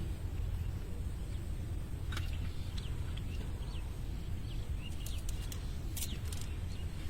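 Small birds chirping briefly a few times over a steady low rumble, with scattered sharp clicks.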